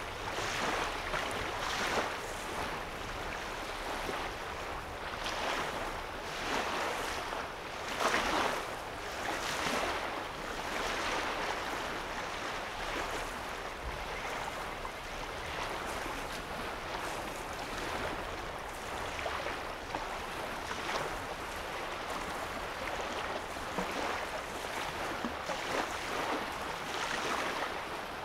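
Small lake waves lapping and washing on a sandy shore. The sound swells and eases every two to three seconds.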